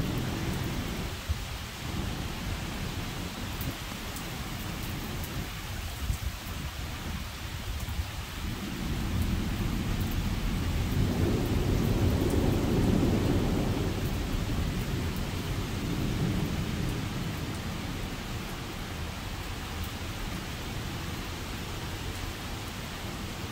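Thunderstorm wind gusting while heavy rain falls steadily. A gust builds to a louder low rush about halfway through, then eases.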